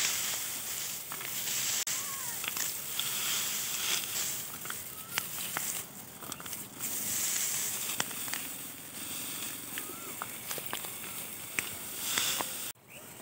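Dry, cut wheat stalks rustling and crackling as they are gathered up by hand into heaps for sheaves, with a few short bird chirps. The sound drops away suddenly near the end.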